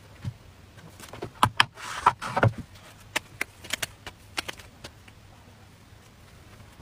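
Handling sounds as a thin crepe is peeled off an electric crepe maker's hot plate and laid on a plate: a scatter of light clicks and taps, with a short rustle about two seconds in.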